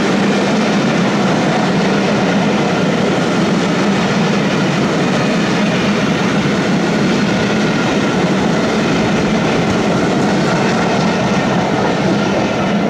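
Railway passenger coaches running past at speed close by: a loud, steady rumble and rattle of steel wheels on the rails.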